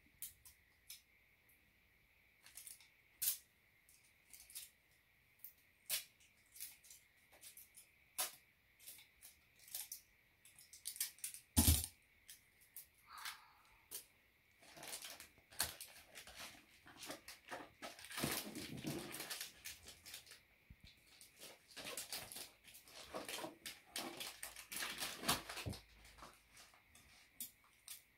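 Sticky tape and wrapping paper being handled while a small present is wrapped: scattered clicks, crinkles and rasps of tape pulled from the roll. One sharp knock about twelve seconds in is the loudest sound, and a faint steady high whine runs underneath.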